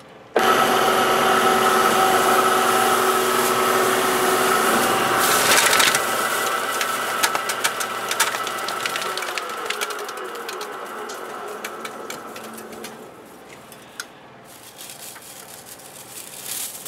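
Small hobby metal lathe switched on and running, with steady motor and gear whine while it turns a metal bar. Long stringy chips whip around and rattle against the chuck and tool post. The spindle then winds down, and near the end the tangled chips are pulled off by hand.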